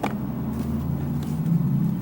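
Steady low machine hum with a single click right at the start.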